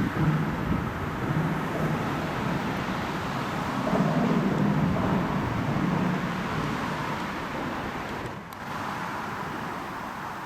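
A train running past on the railway line, a steady rumble with a low hum that is loudest in the middle and eases off near the end.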